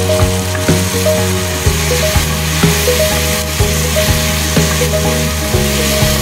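Chopped onions and tomatoes sizzling in hot oil in a frying pan, stirred with a spatula, with light scraping ticks against the pan. Background music with steady held notes plays over it.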